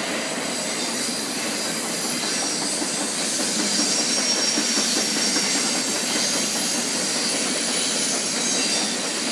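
Norfolk Southern intermodal freight train rolling past, its flatcars loaded with truck trailers: a steady, loud noise of wheels running on the rails.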